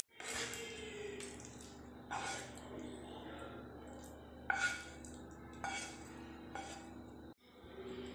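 Cooked brinjal being scraped out of a non-stick frying pan onto a steel plate: a handful of short scrapes and clinks of the pan against the plate, the loudest about halfway through.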